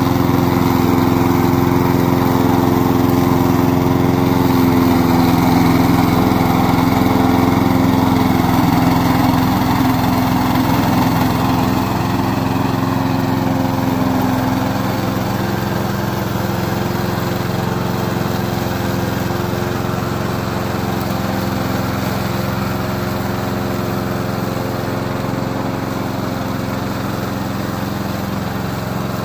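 Gasoline engine of a remote-control lawn mower running steadily, getting slightly quieter about halfway through.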